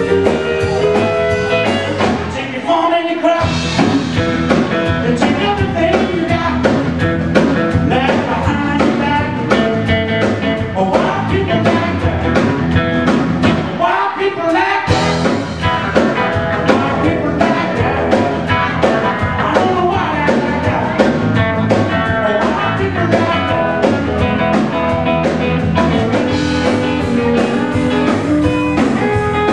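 Live blues band playing: electric guitar over bass and drum kit. The bass and drums drop out briefly twice, about three seconds and fourteen seconds in.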